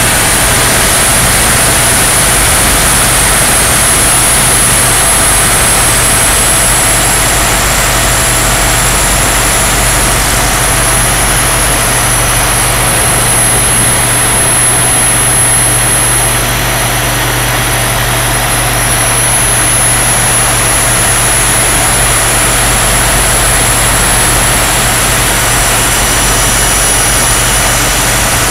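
A 3.4 m radio-controlled EC135 scale model helicopter in flight, heard from a camera mounted on its body. Its engine gives a steady high whine over loud rotor and wind noise.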